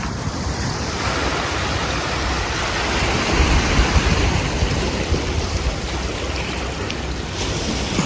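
Sea surf washing onto the beach, rising to a louder surge about three seconds in, with wind rumbling on the microphone.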